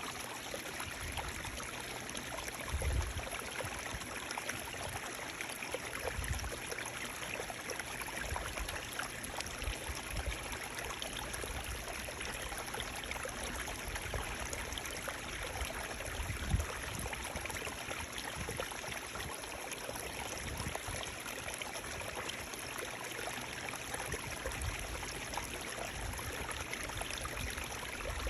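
Steady rush of running water from a stream, with a few brief low bumps, the sharpest just past the middle.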